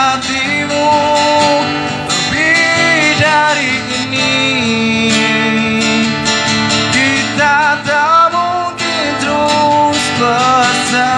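Acoustic guitar strummed while a man sings long, wavering wordless notes into a microphone.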